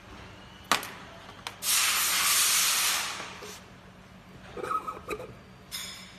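Hands working on a labeling machine's label-roll tray: a sharp click, then about two seconds of loud, even rubbing hiss, followed by a few faint handling noises.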